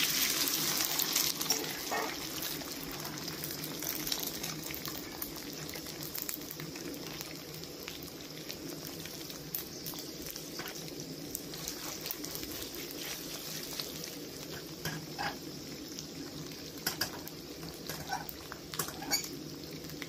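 Marinated beef sizzling in hot rendered beef tallow in a frying pan. The sizzle is loudest as the meat goes in, then settles to a steady frying hiss with scattered pops and clicks.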